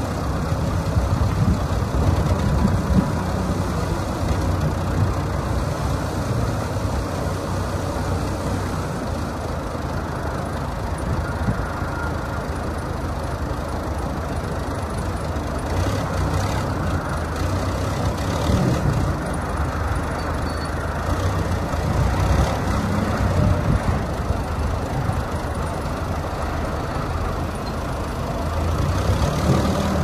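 Case 580C loader backhoe's engine running at a steady speed.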